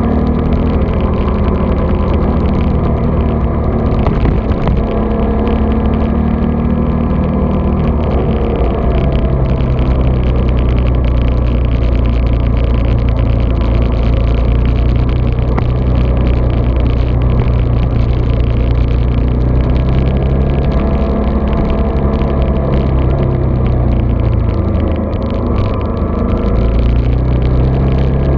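Vehicle engine running, its pitch rising and falling a few times as the speed changes, with steady road or wind noise, heard muffled through an action camera's waterproof case.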